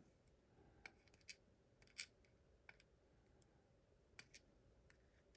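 Faint, scattered small clicks and taps, about ten in all, the clearest about two seconds in: tiny lock pins being handled and set down.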